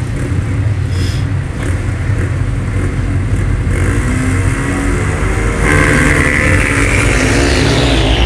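Four 500cc single-cylinder ice speedway motorcycles revving on the start line, then accelerating hard off the start, their engine note climbing in the second half.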